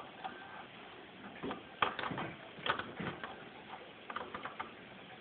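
Scattered sharp clicks and clacks of a Tech Deck fingerboard's plastic deck and wheels hitting the tabletop, with the loudest knock a little under two seconds in.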